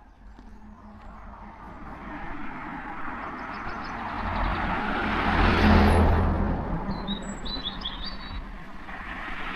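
A car passing by on the road, its tyre and engine noise swelling to a peak about six seconds in and then fading, with another vehicle approaching near the end. Small birds chirp briefly in the background.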